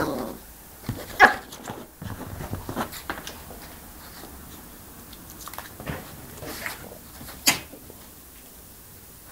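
A Yorkshire terrier puppy making a few short sharp sounds, the loudest about a second in and another near the end, with quieter shorter sounds between.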